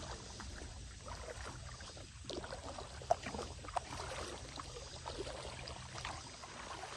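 Quiet paddling on a creek: a stand-up paddle dipping and dripping in the water, with a couple of light knocks about three seconds in and under four seconds in. A low rumble of wind on the microphone underlies it.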